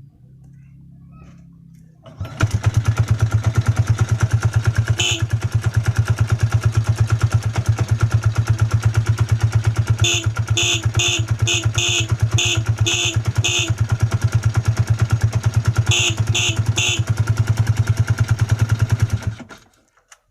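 Motorcycle engine catches about two seconds in and idles with a rapid pulsing beat, then cuts out near the end. Over it the freshly fitted motorcycle horn is tested with short beeps: one, then a quick run of about eight, then three more.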